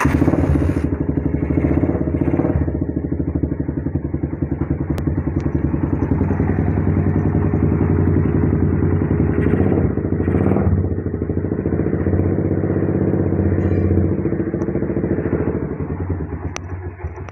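Suzuki Satria FU's 150 cc four-stroke single-cylinder engine running through an aftermarket silver muffler, with a rapid, even exhaust beat that swells slightly about two and ten seconds in.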